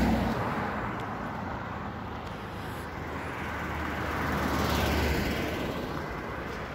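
Cars passing close by, the engine and tyre noise swelling and fading twice: loudest at the very start and again about five seconds in.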